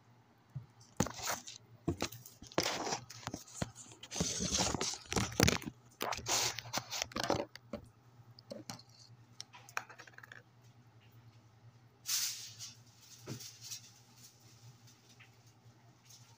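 Kitchen handling noise: irregular knocks, clatters and rustling as things are moved about, mostly in the first half, with another short burst near the end, over a steady low hum.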